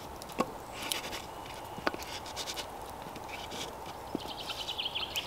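Light taps and knocks of a spice shaker and raw potato slices being handled on a wooden chopping board, a few separate clicks. A quick series of high chirping notes comes in near the end.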